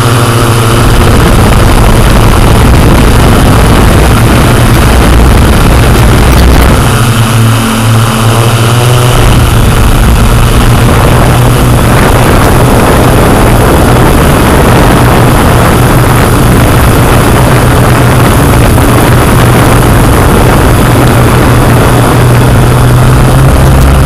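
Yuneec Q500+ quadcopter's propellers and motors whirring loudly and steadily, heard from on board the drone in flight, with a brief shift in the motor sound about seven seconds in.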